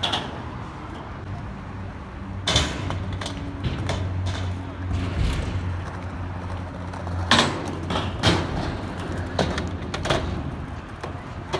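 Skateboard wheels rolling over concrete with a steady low rumble. Sharp clacks of the board striking the ground and ramp come once about two and a half seconds in and several times in the last few seconds.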